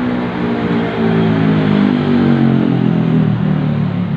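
Suzuki Satria FU 150's single-cylinder four-stroke engine, freshly rebuilt, revved up and then easing slowly back down in pitch; it runs smoothly.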